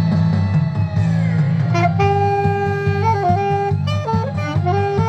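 Saxophone playing a melody with a raw, dry tone and no added effects, over a backing track with a steady low bass line. The saxophone comes in about two seconds in with held notes and stepwise changes of pitch.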